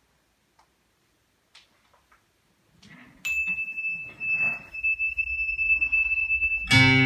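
Music played through a Loewe home-cinema speaker system. After a near-silent pause with a few faint clicks, a track opens with a steady high ringing tone over a low rumble, and loud guitar music comes in near the end.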